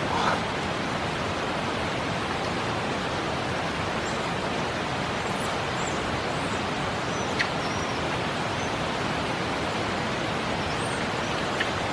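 Steady, even rushing noise throughout, with a few faint, short, high chirps scattered through it and a brief sharp click about seven seconds in.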